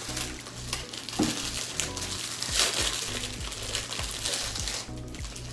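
Foil Pop-Tart wrapper being torn open and crinkled by hand, a crackly rustle that is loudest about two and a half seconds in, over background music with a steady beat.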